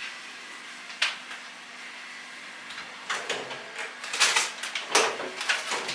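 A single click about a second in, then a run of light knocks and clatter from about three seconds on: household objects being handled.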